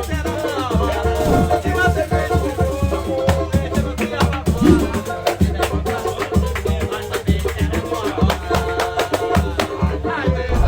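Background music with a steady beat: bass, percussion with a shaker, and a singing voice.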